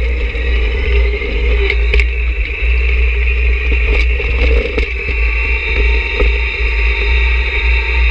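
John Deere 1026R sub-compact tractor's three-cylinder diesel running under load while pushing snow with a snow pusher, a steady deep rumble with a steady high whine over it and scattered sharp clicks.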